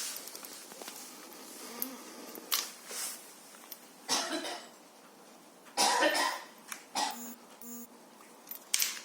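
Handling noise from hand assembly of an electric grinder's armature into its housing: irregular short clatters and scrapes, about half a dozen, the loudest about six seconds in.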